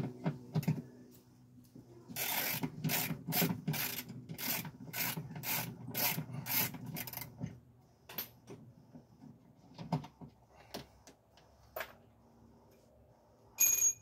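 Rhythmic rasping strokes of a hand tool working on a car door, about a dozen at roughly two a second, then scattered clicks and knocks. A short, bright metallic ring comes near the end.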